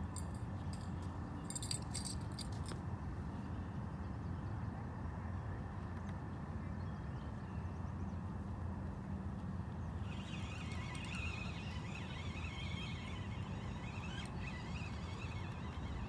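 Spinning reel clicking in the first few seconds as a fish is reeled in, over a steady low rumble. Birds chirp and trill from about ten seconds in.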